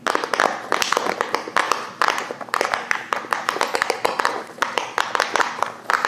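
Round silicone push-pop bubble fidget toys being popped rapidly by several fingers at once: a dense, overlapping run of quick pops and clicks.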